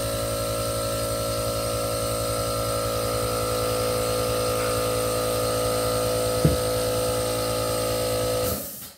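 A motor-driven machine running steadily with a hum and whine, one knock about six and a half seconds in, then cutting off abruptly near the end.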